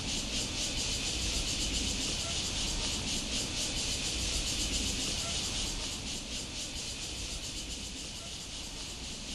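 A steady, high hiss over a low rumble, easing off slightly in the second half.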